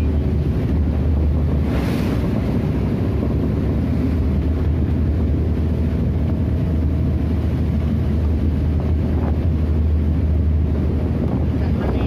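Boat running through rough seas: wind buffeting the microphone over a steady low drone, with waves and wake rushing past and one louder splash about two seconds in.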